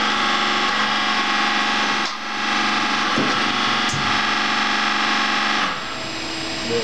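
Korradi VH 1200 universal tool milling machine running: a steady mechanical whine of many tones from its drives. It dips briefly about two seconds in, with a couple of light clicks after that, and drops a little quieter near the end.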